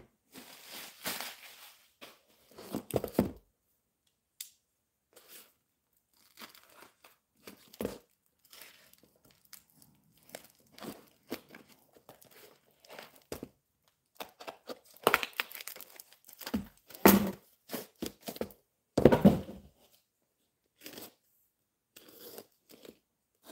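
A shipping mailer being torn open and brown wrapping paper crinkling as it is unfolded around a book, in a string of short, irregular tearing and rustling bursts that are loudest about two-thirds of the way through.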